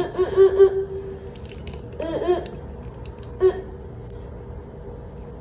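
A child's wordless vocal sounds, like playful sound effects or giggling, in three short runs over the first three and a half seconds, then only faint background noise.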